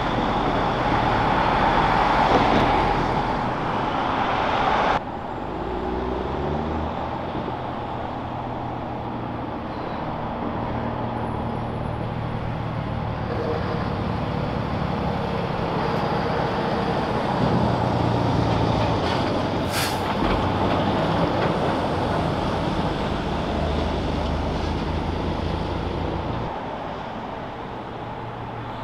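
Heavy trucks' diesel engines running and passing in city traffic, with the sound changing abruptly about five seconds in and again near the end. A brief hiss about twenty seconds in.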